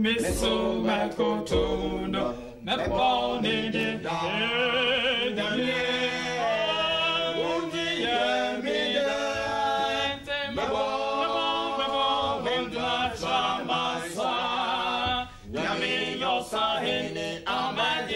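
Male vocal group of four singing a song a cappella, several voices together in harmony.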